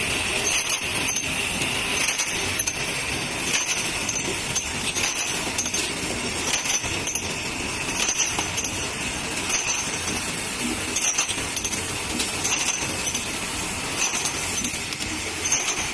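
Automatic eight-head bottle filling and capping machine running steadily: a mechanical clatter with small bottles clinking against each other on the line every second or so.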